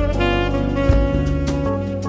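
Background instrumental music with a drum beat and a held melody line over a bass line.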